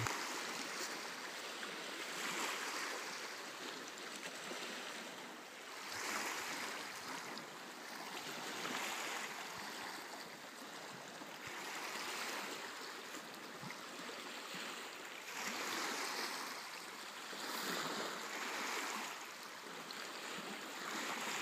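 Small waves lapping at the shore: a soft wash of water that swells and eases every two to three seconds.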